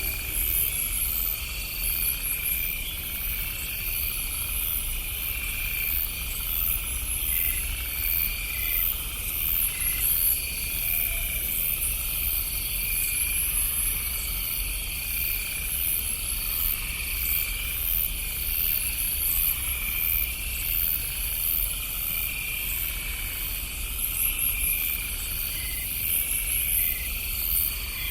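Night insects chirping in steady repeating pulses at several different pitches, over a low steady rumble.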